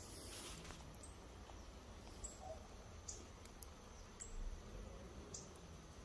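Faint outdoor ambience with a steady high-pitched insect trill and a few brief high chirps.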